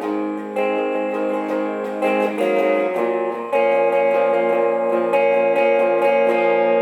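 Instrumental music: plucked guitar notes over sustained chords, with no singing.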